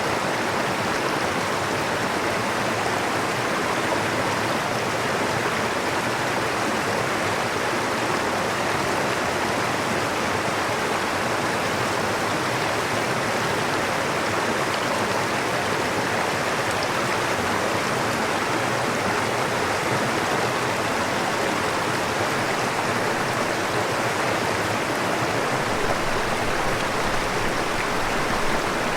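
Stream water flowing, a steady, unbroken rush with no pauses or distinct events.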